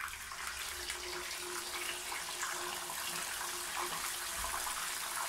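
A steamed whole chicken deep-frying in hot ghee in a pan, with a steady, crackling sizzle.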